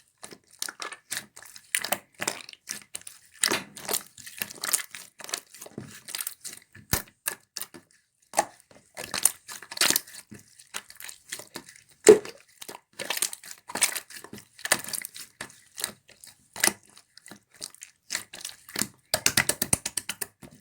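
Hands playing with slime: a steady run of small sticky pops and crackles, with a dense flurry shortly before the end.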